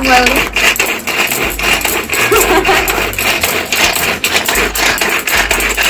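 Hand-pull cord vegetable chopper clattering rapidly as its cord is pulled again and again, the spinning blades chopping cabbage inside the plastic bowl.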